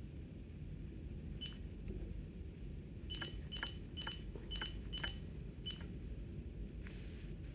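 Short, sharp clicking beeps from a power wheelchair's switch-driven mouse-click control: one about a second and a half in, then six in quick succession about half a second apart, over a steady low hum.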